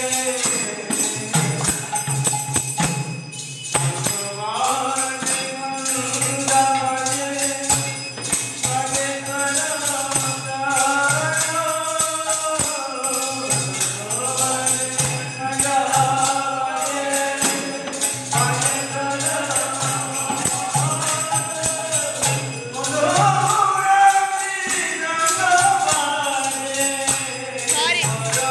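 Devotional kirtan: voices singing a chant together, with hand cymbals struck in a steady rhythm.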